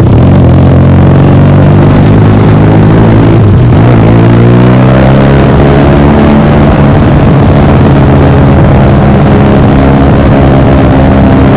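Motorcycle engine running loud through an aftermarket exhaust. The revs drop about three and a half seconds in, then climb again and hold steady.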